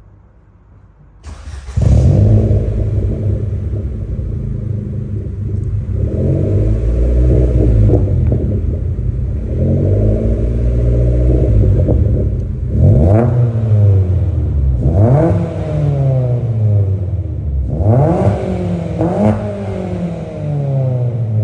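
A 2011 Ford Fiesta Zetec S's 1.6 Ti-VCT four-cylinder petrol engine, fitted with a 2-inch resonated Cobra cat-back exhaust, starts up about two seconds in and settles to idle. In the second half it is given several quick throttle blips, each rising sharply and falling back to idle.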